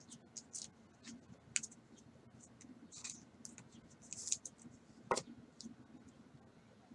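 Faint clicks and soft plastic rustles of a trading card being slipped into a clear plastic sleeve and handled, with one sharper click about five seconds in.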